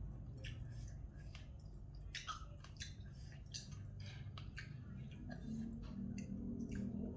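Close-up wet chewing and mouth clicks of a person eating spicy glass-noodle seafood salad. Music fades in near the end.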